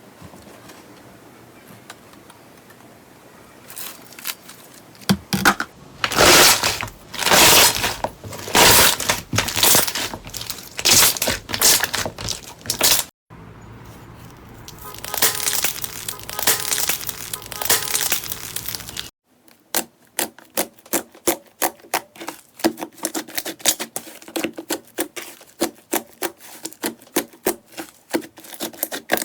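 Slime being squeezed, stretched and pressed by hand, making crackling, crunchy pops and sharp clicks in a few cut-together clips; the last stretch is a rapid run of clicks and pops.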